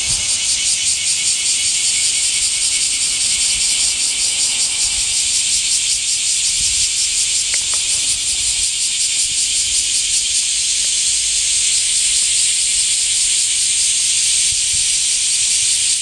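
A dense chorus of cicadas: a loud, steady, high-pitched buzzing hiss with a fast pulsing shimmer.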